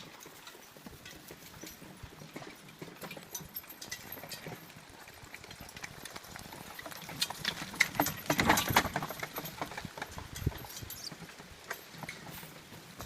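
A working horse's hooves clip-clopping amid scattered knocks and clatter, busiest and loudest about eight to nine seconds in.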